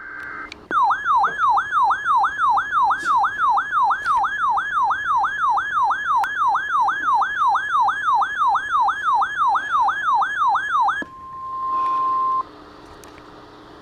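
Emergency alert broadcast's attention signal: a loud, fast siren-like warble sweeping up and down about two and a half times a second. It cuts off after about ten seconds and gives way to a steady single beep tone, then faint hiss, ahead of an Amber Alert announcement.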